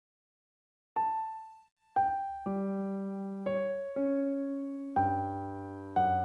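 Background piano music: after about a second of silence, slow single notes and then chords struck roughly once a second, each ringing and fading, with bass notes joining near the end.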